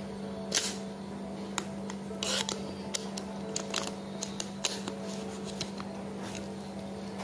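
Irregular small clicks and taps, with a brief scrape a little after two seconds, from hands working a homemade fishing-slingshot line reel and quick-release trigger, over a steady low hum.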